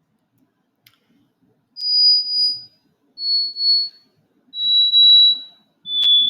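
Software synthesizer playing four high, pure sine-wave notes one after another, each lower in pitch than the last, as keys are played down its keyboard.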